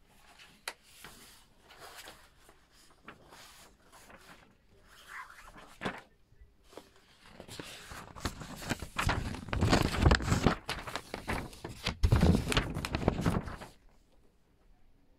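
Paper handling: photos rustling and shifting with light clicks. From about eight seconds in come louder rubbing and bumping handling noises close to the microphone, against fabric. They stop about a second before the end.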